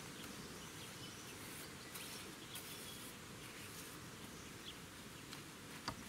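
Faint outdoor background hiss with insects, and a few soft scratches of a paintbrush daubing black paint onto the end grain of a round log.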